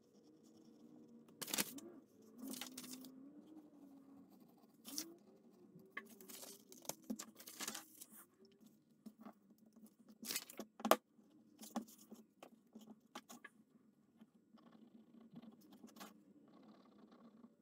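Faint paper and workbench handling sounds: a paper template being cut out with a hobby knife, rustled and set on a wooden block, then traced around with a pen. Scattered short rustles, taps and scrapes at irregular times.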